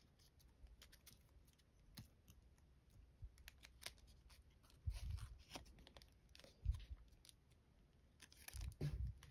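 Foil paper crinkling faintly in the hands as it is folded and pinched, a string of small scattered crackles, with a few soft low thumps.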